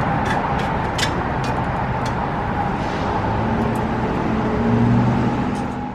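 Power grinder cutting metal on a bicycle frame part: a steady, loud grinding noise with a constant whine that fades out near the end.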